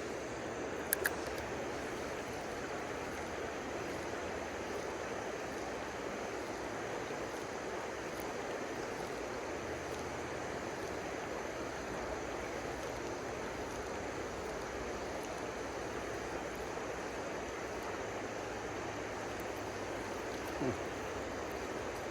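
River water rushing steadily, an even wash of flowing current.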